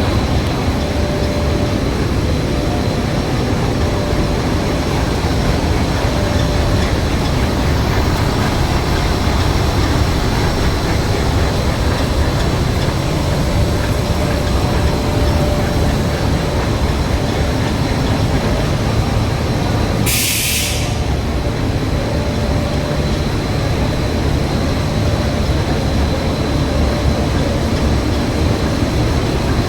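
Industrial film window de-metalizing and coating machine running with a loud, steady mechanical noise and a faint steady whine. A short hiss cuts in once, about twenty seconds in.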